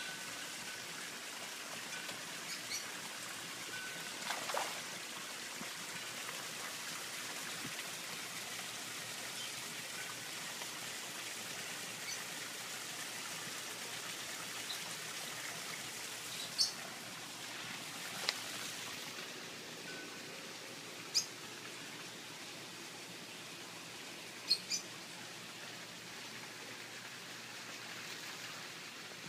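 Water trickling and splashing steadily from a small garden-pond waterfall, easing off a little past the middle. A few short bird chirps come through in the second half.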